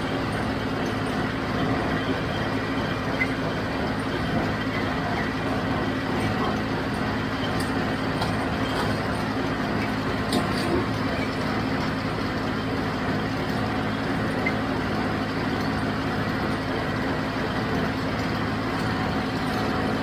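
John Deere 5055D tractor's diesel engine running steadily while it pulls a John Deere 348 square baler, with a few faint clicks and knocks from the baler.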